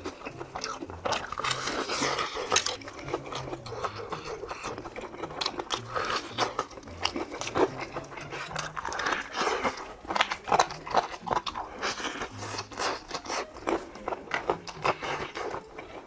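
Fried chicken being bitten and chewed: repeated crunching bites of the crisp coating with chewing between them.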